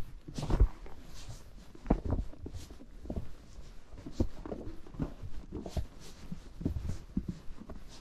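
A horse's hooves stepping through snow at a walk, an irregular series of soft thuds.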